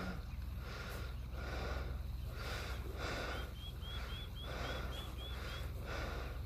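A small bird's run of about eight short rising chirps in the middle, over a rhythmic rushing noise that comes about twice a second and a steady low hum.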